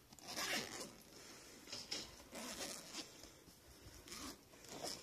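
Zipper on a soft fabric pet carrier being pulled open in about six short rasping runs.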